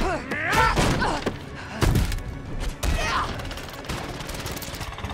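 Fight sound effects from an animated film: heavy blows and thuds mixed with the fighters' grunts and snarls, with the biggest impact about two seconds in.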